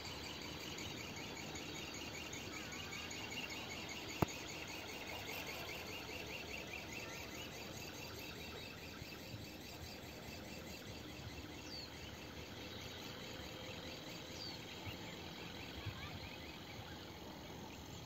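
Faint rural field ambience: insects trilling in a fast, steady pulse, with a few short bird chirps and one sharp click about four seconds in.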